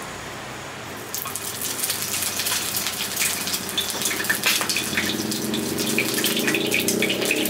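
An egg frying in hot oil in a pan: sizzling with dense popping and crackling spatters. It starts suddenly about a second in, after a quieter hiss, and then keeps on steadily.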